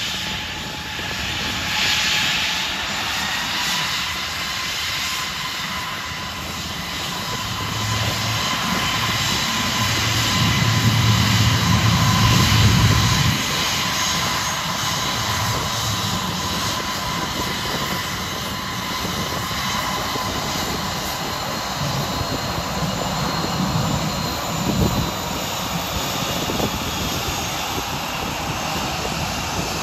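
Airbus A320 jet engines running at taxi power as the airliner rolls past: a steady whine of several high tones over a rushing sound. A louder low rumble comes in about ten seconds in and fades a few seconds later.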